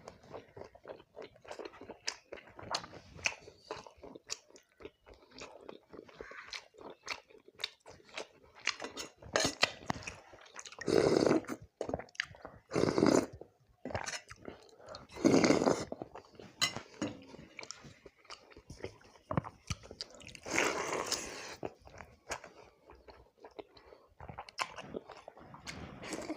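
Close-miked eating: a person chewing and crunching fried fish with watery fermented rice, with a steady run of small wet mouth clicks and crunches. Several louder, longer mouthfuls stand out around the middle and again later on.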